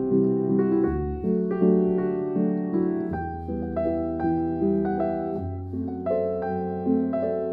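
Calm solo piano music, notes struck one after another at an unhurried pace and left to ring.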